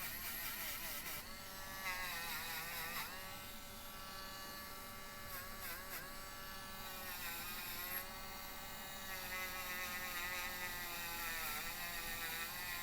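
Small handheld rotary tool running as it polishes bare diecast metal, a steady whine whose pitch dips briefly several times as it is pressed onto the metal.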